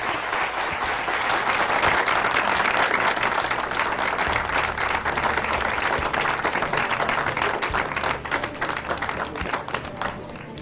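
Studio audience applauding, a dense patter of many hands clapping that thins and fades near the end.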